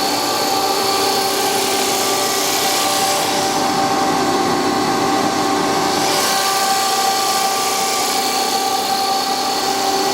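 OMM four-head paper drilling machine running, its electric motors spinning the drill heads with a steady whine of several tones over a hiss. The upper hiss drops away for a few seconds in the middle, then returns.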